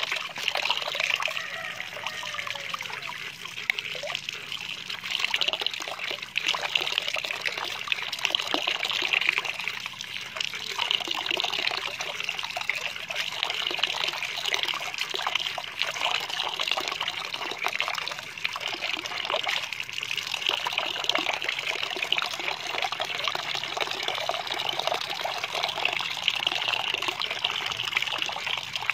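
A steady stream of running water pouring into a plastic basin already full of water, splashing continuously, with irregular extra splashes as a hand swishes and rubs leafy greens in the water.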